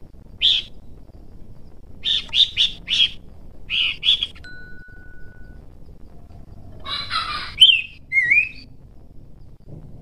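A caged Horsfield's babbler calling in bursts. First a single sharp note, then a quick run of four and a pair. About seven seconds in comes a harsh churring burst, then a sharp note and a short wavering whistle.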